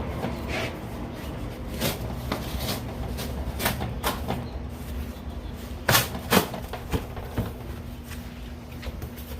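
Cardboard shipping boxes being handled and opened: scattered scrapes, rustles and knocks, the loudest two a little before and after six seconds in, over a steady low hum.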